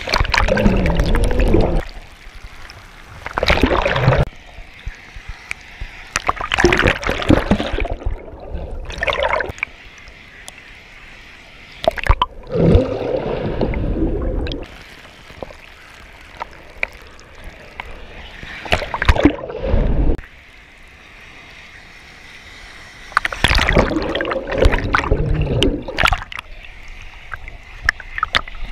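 Surf water splashing and sloshing over a waterproof camera bobbing at the surface, with loud bursts every few seconds as waves wash over it and quieter stretches between.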